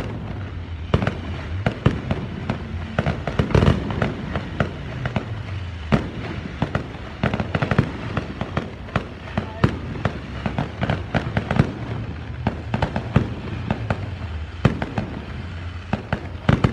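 Aerial fireworks going off in a dense, irregular string of bangs and crackles, with a few heavier bangs standing out.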